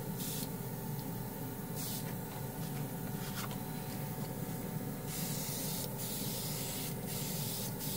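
Portable airbrush with built-in mini compressor spraying paint in several short bursts of hiss as the trigger is worked, the later bursts longer, over a steady motor hum.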